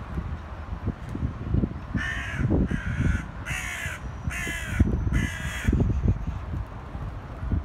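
A bird gives five harsh calls in quick succession, starting about two seconds in.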